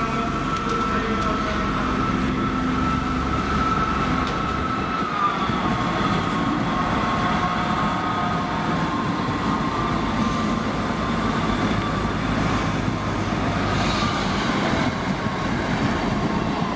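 First Great Western Class 158 diesel multiple unit running past along the platform: a low diesel rumble under a steady high whine, which dips slightly in pitch about five seconds in.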